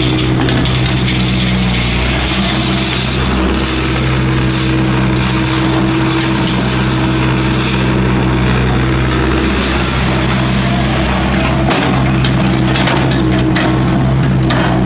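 Kobelco SK50 mini excavator's diesel engine running steadily under hydraulic load as the machine digs and swings, with broken asphalt chunks knocking and clattering against the bucket near the end.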